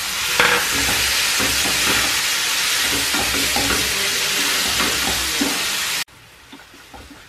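Merguez sausage, onion, green pepper and diced tomato sizzling in a frying pan while a wooden spoon stirs them, with light scrapes of the spoon against the pan. The sizzle cuts off suddenly about six seconds in.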